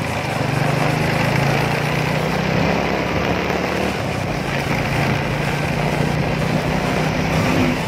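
A vehicle's engine running steadily while driving at a constant speed, with road and wind noise.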